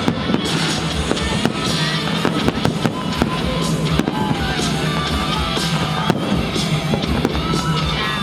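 Aerial fireworks bursting in a rapid, irregular string of bangs and crackles, with loud show music playing under them.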